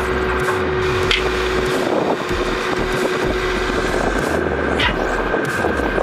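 Heavy construction machinery running, the diesel engine of an excavator or bulldozer, with a steady whine that stops about two seconds in and a few short clanks. Wind is on the microphone.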